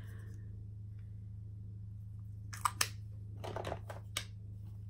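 A few soft clicks and taps of makeup products being handled, about halfway through, over a steady low hum.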